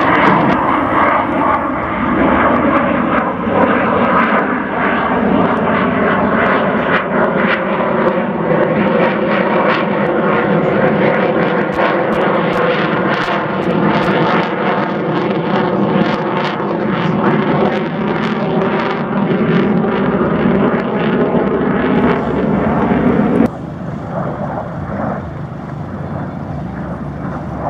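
Lockheed Martin F-22 Raptor's twin F119 turbofan engines: loud, continuous jet noise as it manoeuvres overhead, with bands of tone that slowly glide down and back up in pitch. About 23 seconds in, the sound drops suddenly to a quieter, steadier aircraft noise.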